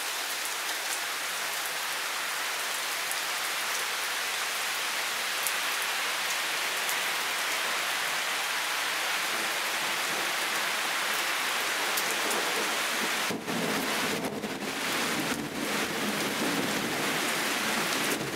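Heavy rain falling steadily on garden foliage and surfaces, with single close drops ticking now and then. About two-thirds of the way through, a low rumble of thunder joins in.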